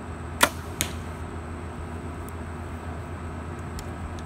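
Compound bow shot: a sharp snap of the string as the arrow is released, then about a third of a second later a lighter smack of the arrow hitting the target. A steady low hum runs beneath.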